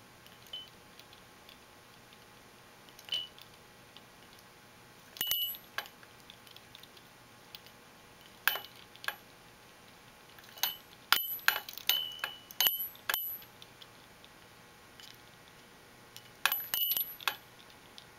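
A budgerigar knocking a small metal bell toy, which clinks and rings briefly. There are a few separate strikes, then a busier run of rings in the middle, and another cluster near the end.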